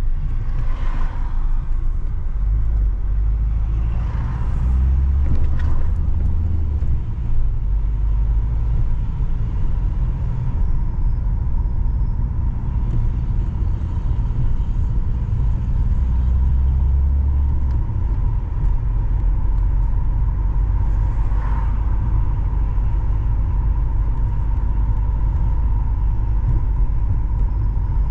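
Steady low road and engine rumble of a car driving along a road, with a faint steady high hum. A few brief swells of noise come through along the way.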